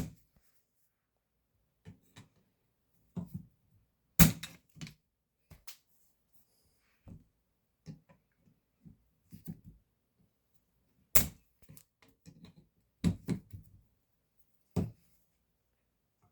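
Irregular sharp clicks and knocks, about a dozen, from hand work on a Heritage Rough Rider .22 revolver and tools, the loudest near the start, about four seconds in and about eleven seconds in.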